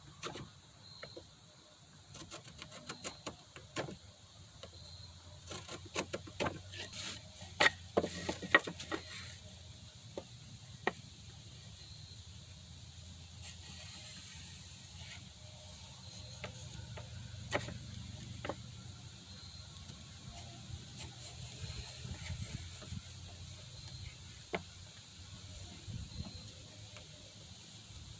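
Hand tools and wood being handled on a workbench: scattered knocks and clicks, thickest about six to nine seconds in, over a low steady hum.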